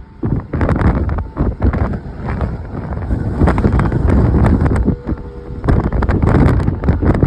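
Strong wind buffeting the microphone in loud, uneven gusts. A distant outdoor tornado warning siren's steady tone comes through faintly in places.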